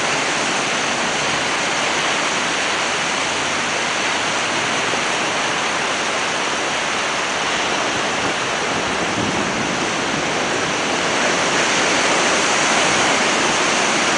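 Ocean surf washing onto the shore: a steady, even noise of waves, a little louder in the last few seconds.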